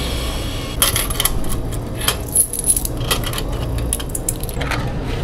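Coin changer machine paying out coins for a banknote: a quick run of metallic clinks as the coins drop into the tray, starting about a second in and lasting a couple of seconds, with a few more clinks near the end, over a steady low hum.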